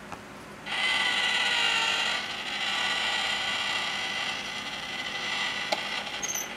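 Battery-powered 'stealing cat' coin bank's small geared motor whirring with a steady whine for about six seconds as the toy cat rises out of the box and drags the coin off the tray, louder for the first second or so, with a click near the end.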